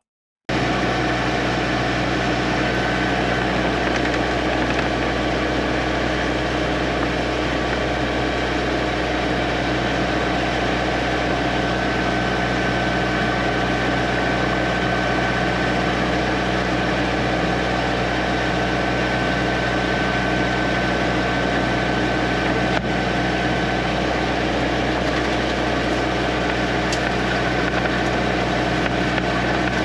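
High-pressure drain jetter (4000 psi, 12 gpm unit) running steadily, its engine and pump under load while jetting scale out of a stack. It starts abruptly about half a second in and holds an even drone.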